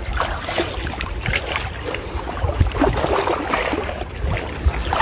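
Water sloshing and splashing as a person wades through muddy floodwater among bushes, with irregular small splashes and crackles over a low rumble.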